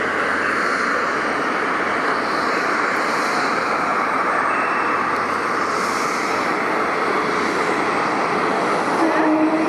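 Jet airliner landing, its engines a steady rushing noise with no change in level.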